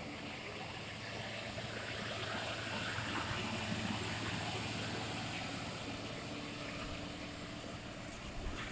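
Loaded tractor-trailer truck driving slowly past, its diesel engine running steadily under tyre noise. The sound grows louder to a peak about midway, then fades as the truck moves away.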